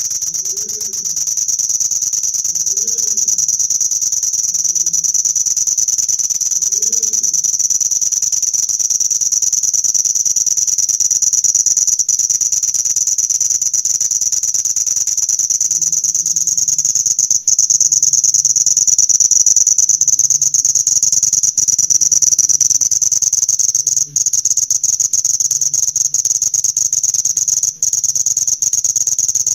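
An insect's steady, high-pitched shrill trill, held without a break and sagging slightly in pitch partway through.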